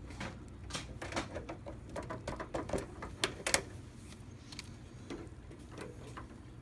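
LED T8 tubes being fitted into a fluorescent fixture's sockets: a run of irregular plastic clicks and taps, loudest a little over three seconds in.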